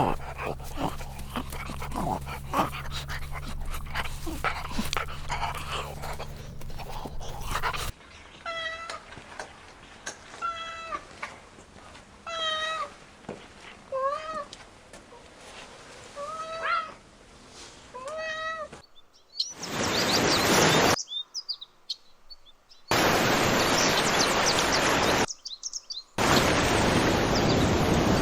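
Spliced animal-sound clips: clicking and knocking over a steady low hum, then a kitten meowing about eight times in separate calls, then three loud stretches of hiss-like noise.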